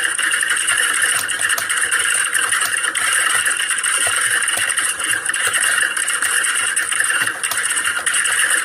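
Many computer keyboards being typed on fast at once, giving a dense, continuous clatter of keystrokes with no pauses, as in an exam hall during a typing test.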